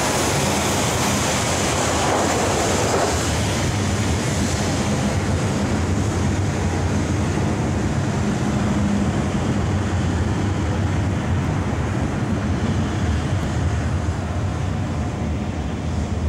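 Maunsell S15 4-6-0 steam locomotive No. 828 running, a steady rumble with hiss, the hiss louder in the first three seconds or so.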